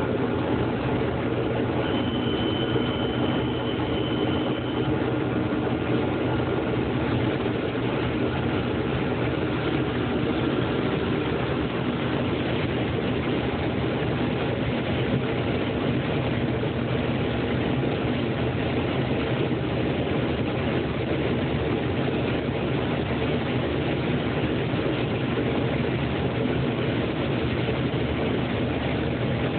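Heavy diesel harvest machinery running steadily: a continuous low engine drone with no breaks. A faint high whine sounds for a few seconds near the start.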